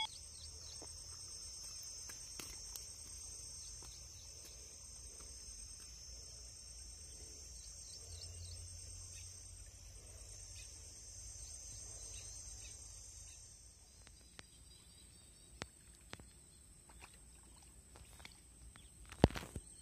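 Faint outdoor ambience of insects chirring steadily in a high-pitched band, which drops away about two-thirds of the way through. After that come a few faint clicks and a single sharp click near the end.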